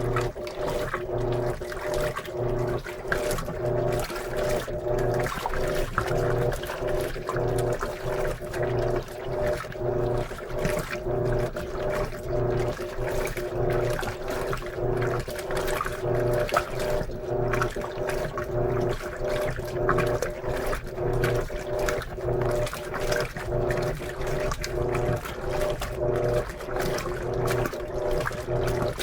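Electrolux LM13Q top-load washing machine agitating a load of jeans: a steady motor hum under water sloshing that surges about once a second as the agitator swings back and forth.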